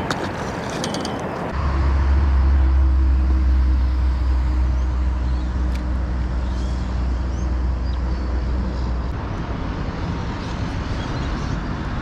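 Road traffic noise, with a motor vehicle's low engine rumble that swells about a second and a half in and fades away by about nine seconds, as it passes.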